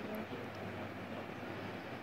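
Steady low background noise, a hum and hiss with no distinct events: room tone.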